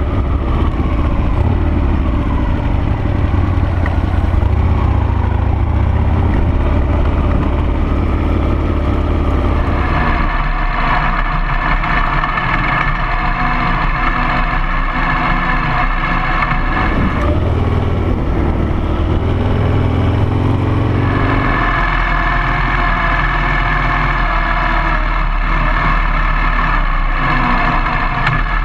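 Harley-Davidson Sportster V-twin engine of a dual-sport motorcycle running on a trail ride. The revs rise and fall, with stretches of steadier, higher-pitched running at about ten seconds in and again past twenty seconds.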